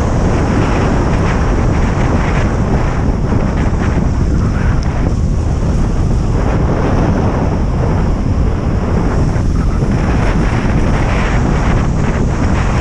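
Strong wind buffeting the action camera's microphone while kite landboarding in a 10–15 knot wind: a loud, steady, rumbling rush.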